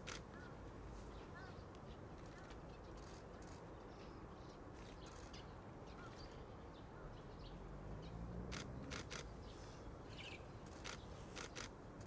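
Faint background hiss with scattered soft bird chirps, small rising notes. Short, sharp clicks come in a quick cluster of three past the middle and again near the end.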